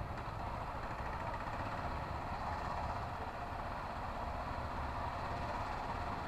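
Motorcycle engine running steadily at low road speed, heard from a helmet-mounted camera with a continuous rush of wind and road noise over it.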